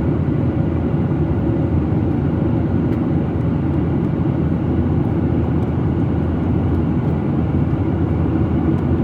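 Steady rumble of a Boeing 737-800 heard from inside the passenger cabin: engine and airflow noise, weighted low and unbroken.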